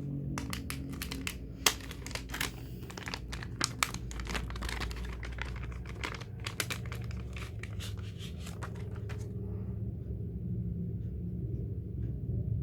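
Crinkly merchandise packaging being unwrapped and handled by hand, with quick crackles and small tearing sounds that are busy for about nine seconds and then grow sparse and quieter.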